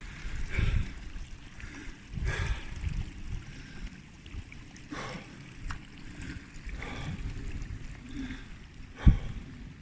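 Wind buffeting the microphone, with a hiker's irregular, splashy footsteps on wet hillside ground.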